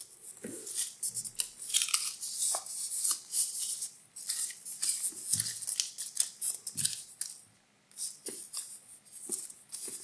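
Hands handling a fabric bag and its sewn-in cloth labels: irregular rustling and soft scratching, with a short pause about three-quarters of the way through.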